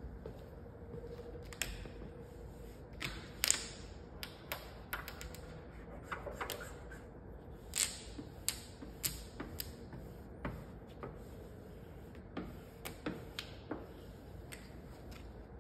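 Hand squeegee scraping over vinyl wrap film on a car door, in short irregular strokes with small clicks and crackles as the film is pressed down; two longer swishes stand out, about three and a half and eight seconds in.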